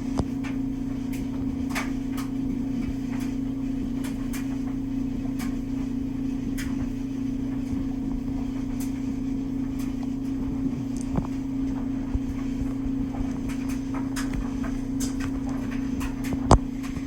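A steady low mechanical hum with scattered faint light clicks.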